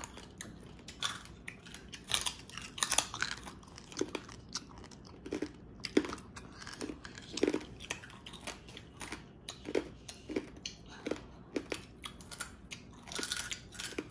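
Close-up crunching and chewing of crispy deep-fried pork chicharon: sharp crackling bites at first, then repeated crunchy chews about every half second.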